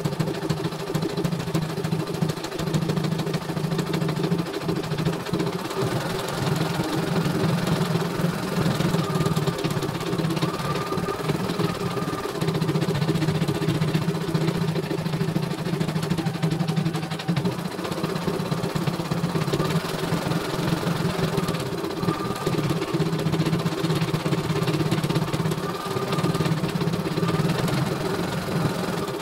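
CNY E900 computerized embroidery machine stitching out a design: a steady, rapid needle rattle over the motor hum, easing off briefly every four to five seconds.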